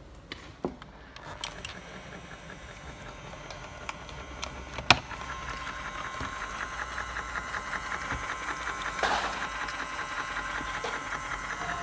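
Small electric motor of a toy microwave oven whirring steadily as it turns the turntable, with a few sharp plastic clicks in the first seconds, the loudest about five seconds in.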